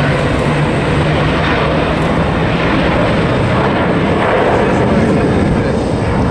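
Boeing 737-800 jet engines running at takeoff thrust as the airliner lifts off and climbs away: a loud, steady rush of jet noise.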